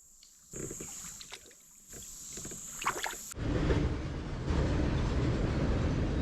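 A steady high-pitched insect drone with a few faint knocks, then, about three seconds in, a sudden change to a loud, even rushing noise of a kayak drifting on moving creek water.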